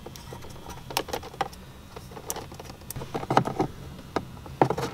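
Scattered light clicks and taps of hands working a gauge and its wiring into an A-pillar gauge pod, a cluster of them about three and a half seconds in.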